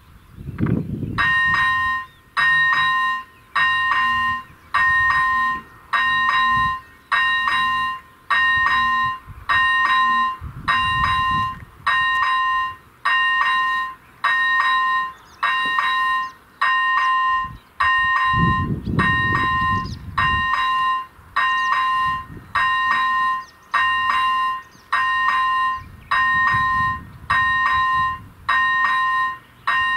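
Electric level-crossing bell (AŽD ZV-01) starts about a second in and rings a clear tone about once a second: the crossing warning is active for an approaching train. A few low rumbles sound underneath.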